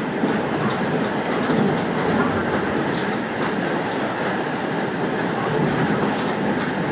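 Passenger train heard from on board while running along the track: a steady rumble of wheels on rail, with a few faint clicks.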